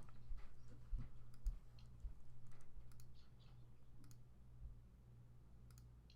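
Irregular clicks of a computer mouse and keyboard as pages are worked by hand, over a steady low electrical hum.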